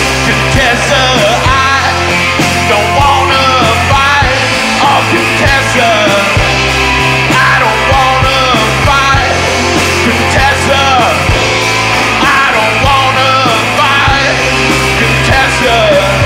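A rock band playing live, with electric guitar and a man singing.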